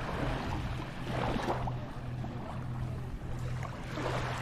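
Beach ambience: small waves washing on the sand in gentle swells, over a steady low hum.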